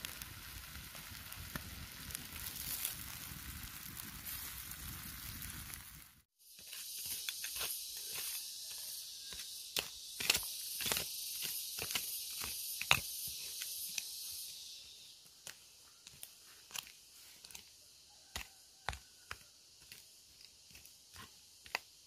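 Baby octopus sizzling on a hot flat stone, a dense steady frying hiss. After a sudden break about six seconds in, a small hand hoe chops and scrapes into soil in irregular strikes, over a steady high hiss that fades out about two-thirds of the way through.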